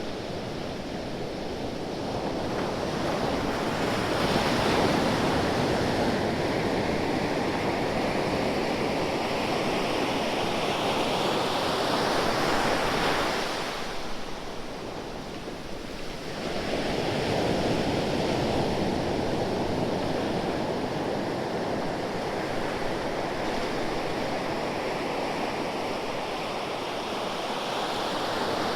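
Ocean waves washing onto a shore, a continuous rush that swells and eases, dipping about halfway through before another wave builds.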